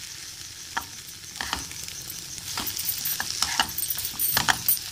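Wooden spatula stirring and scraping poha (flattened rice) with spice masala in a kadhai, over a light sizzle. The scrapes and knocks against the pan come faster and louder in the second half.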